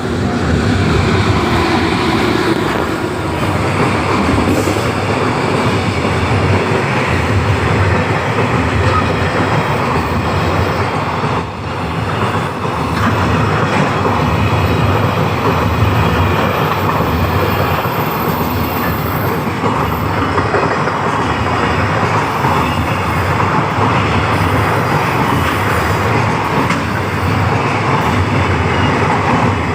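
A freight train of many wagons passing: a steady rumble and clatter of wheels on the rails, with a brief dip about eleven seconds in.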